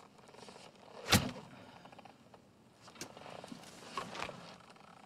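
Film sound effects of armour and gear moving: one sharp, loud knock about a second in, then a few fainter knocks and clinks over a low hiss as a warrior pulls off his helmet.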